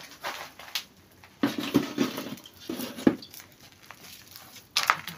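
A large metal cooking pot being carried and set down on a charcoal stove: irregular scuffs and handling noises, with a sharp knock about three seconds in.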